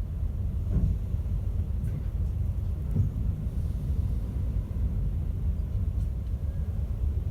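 Low, steady rumble heard inside the passenger cabin of a Class 390 Pendolino electric tilting train, with a couple of faint knocks about one and three seconds in.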